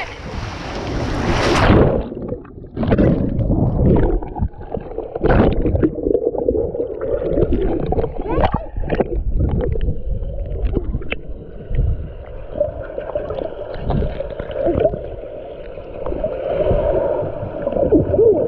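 Splashing for about two seconds as the camera goes into a pool, then muffled underwater sound: gurgling and sloshing water with dull knocks as the camera is moved about below the surface.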